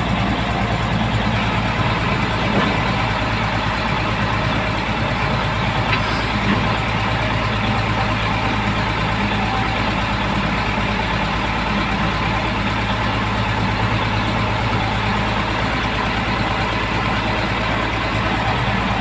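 Truck engine running steadily with a low, even drone.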